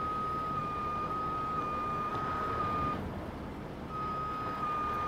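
Heavy tow truck's warning alarm sounding as one steady high tone for about three seconds, breaking off briefly, then sounding again for about two. A low engine rumble runs underneath while the winch pulls to break a partly cut piece of burnt trailer free.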